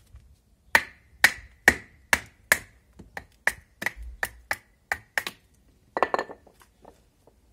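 Knife being struck into a piece of wood to split it open: about a dozen sharp knocks, roughly two a second, the first ones loudest and each with a short ring, then a brief clatter about six seconds in.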